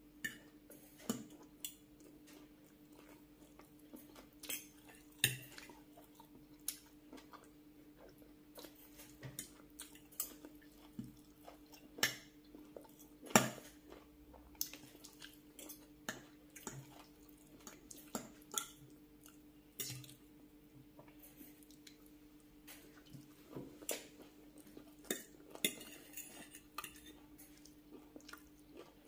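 Metal fork and spoon clinking and scraping against glass plates as food is scooped up, in irregular sharp clinks, with soft chewing between them and a steady low hum underneath.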